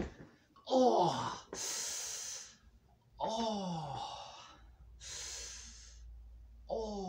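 A man groaning and breathing hard from exertion: three groans that slide down in pitch, each followed by a loud breath out.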